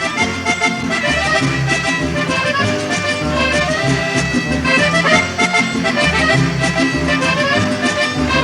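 Mariachi band playing an upbeat instrumental passage with no singing: sustained melody notes over a bass line that moves note by note, with a steady beat.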